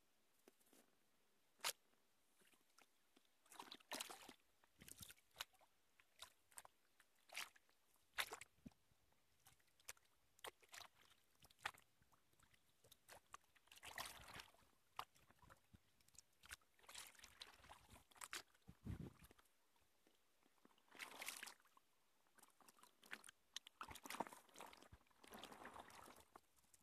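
Faint, irregular kayak paddle splashes and drips, with scattered sharp clicks and knocks.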